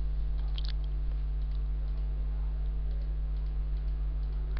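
Steady electrical mains hum on the recording, with a few faint short clicks in the first second.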